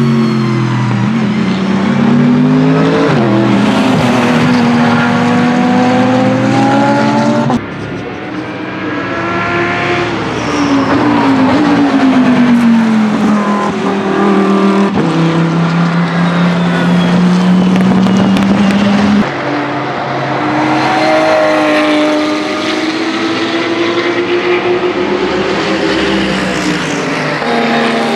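GT race car engines at full song on a circuit: several cars pass in turn, their engine notes climbing through the revs and dropping at each gear shift, with sudden changes where one pass cuts to the next.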